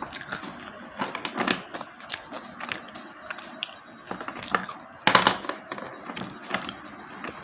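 Slate pencils being bitten and chewed: an irregular run of crisp, dry crunches and snaps, the loudest crunch about five seconds in.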